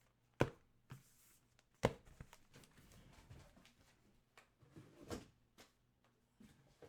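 Card boxes being handled and set down on a table: two sharp knocks in the first two seconds, then lighter taps and shuffling.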